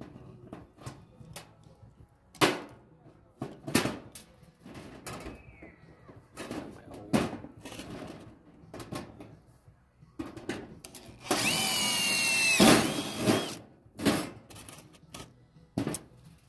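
Scattered knocks and clatter of tools and parts being handled, then a handheld power tool runs for about two seconds, its whine dropping slightly in pitch, with a short further burst just after.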